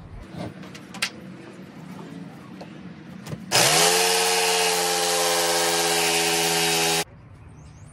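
Harbor Freight corded jigsaw starting about three and a half seconds in, its motor quickly rising to speed, then running steadily as the blade cuts into an MDF panel, and cutting off suddenly about a second before the end. Before it, a few light clicks and knocks.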